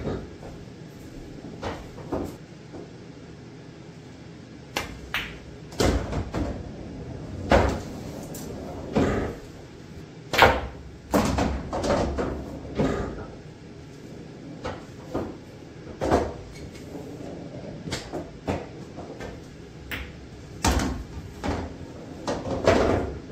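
Pool balls in play on a pool table: a series of sharp knocks and clacks as the cue strikes the cue ball, balls hit each other and the cushions, and object balls drop into the pockets, some with a short rumble after.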